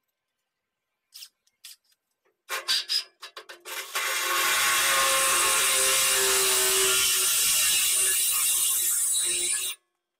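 A few clicks and short spurts, then a cordless drill runs steadily under load, drilling into the steel loader bucket, for about six seconds before stopping suddenly.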